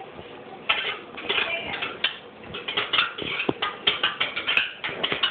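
Aluminium cooking pots clattering and knocking as they are handled on a kitchen shelf, in quick irregular knocks, with a brief squeak about three and a half seconds in.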